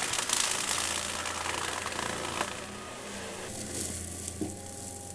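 Cat compact track loader running with a forestry mulcher head shredding brush and undergrowth: a dense shredding noise over the machine's steady engine drone. The shredding noise eases off about three and a half seconds in, leaving mainly the engine.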